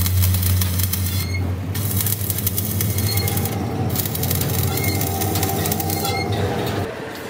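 Stick (arc) welding on sheet steel: a steady crackling sizzle of the arc, breaking off briefly two or three times, over a steady low hum that stops shortly before the end.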